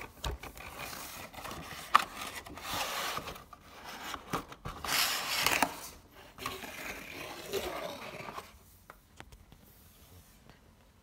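Cardboard and clear plastic toy packaging being opened and pulled apart by hand: rubbing and scraping in surges, with a sharp click about two seconds in. The handling grows quieter over the last couple of seconds.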